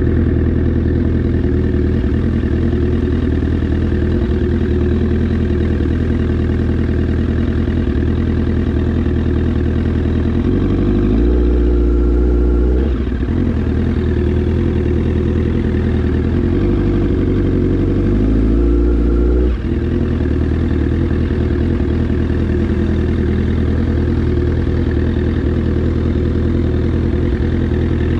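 Sport motorcycle engine running steadily while riding. The pitch climbs under throttle twice, about ten and sixteen seconds in, and each climb cuts off abruptly as the throttle closes.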